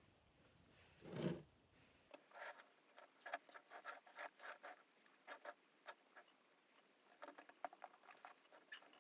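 Faint, irregular sticky clicking and squelching of glue-based glitter slime being mixed by hand, with one dull thump about a second in.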